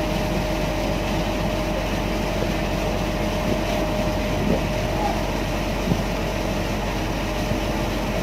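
A ferry's engine running steadily with a constant drone.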